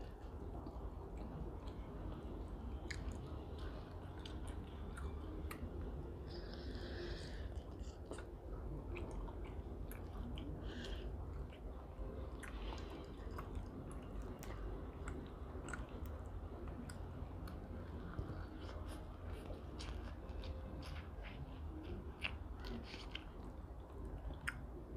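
Close-miked chewing and mouth smacks of a person eating steamed prawns and scallops, with many small sharp clicks scattered throughout and a steady low hum underneath.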